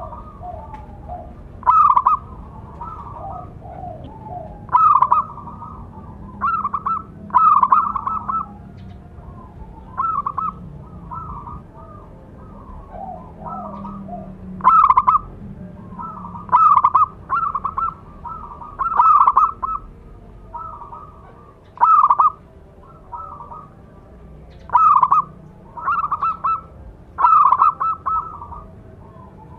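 Zebra dove cooing: short, rapid staccato coo phrases repeated every one to two seconds, with fainter, lower coo notes between them.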